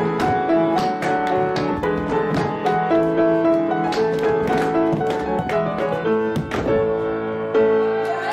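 Grand piano playing a lively dance tune, with sharp taps and thuds of dancers' feet on a wooden stage.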